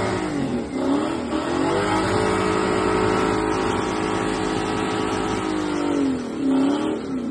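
An old Toyota Hilux pickup on oversized tyres runs at high revs as it climbs through mud. The engine note sags under load and picks back up twice, about a second in and again near the end.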